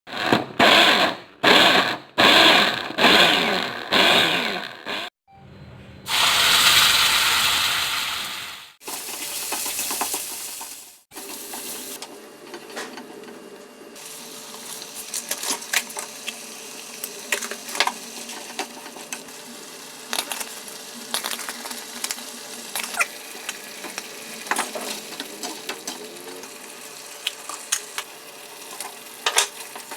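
Cooking in a pan: food sizzling while being stirred, with frequent sharp clicks of a utensil against the pan. It is preceded by several seconds of loud, choppy, machine-like bursts and a louder hiss.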